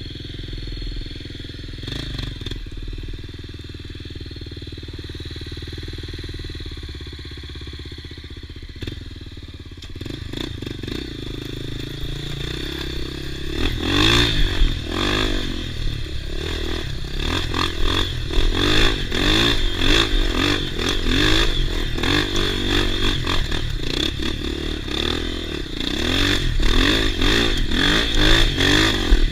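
Off-road motorcycle engine running steadily at low revs, then revving harder and louder from about ten seconds in, with repeated rises and falls in engine speed.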